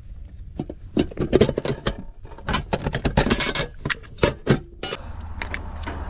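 Hands handling refrigerant gauge hoses, fittings and tools at a heat pump's outdoor unit: an irregular run of clicks, rattles and clatters. A steady low rumble comes in near the end.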